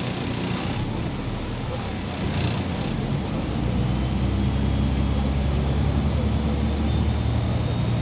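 MAZ 203 city bus's diesel engine heard from inside the cabin while riding, a low steady drone. The engine note grows louder and fuller about four seconds in, as the engine works harder.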